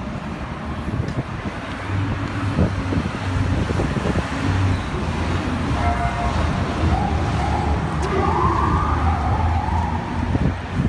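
Emergency vehicle siren rising and falling in pitch from about seven seconds in, over a steady low rumble of city street traffic.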